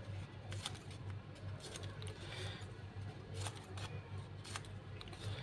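Scissors snipping a narrow strip of red craft paper into small pieces, a series of short sharp snips about one a second, over a low steady hum.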